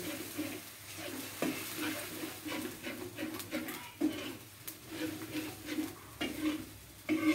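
Long metal ladle stirring and scraping a thick spice paste around a black wok in repeated strokes, with a few sharp clicks of metal on the pan and a soft sizzle of the paste frying in oil.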